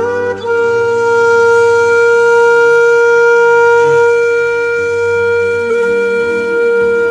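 Background music: a wind instrument holds one long, steady note for several seconds, with softer lower tones beneath it near the end.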